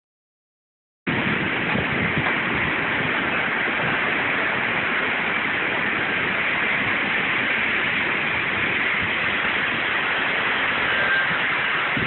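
Heavy rain and strong wind in a storm: a steady, loud rushing hiss of pouring rain with wind gusting through the trees, starting about a second in.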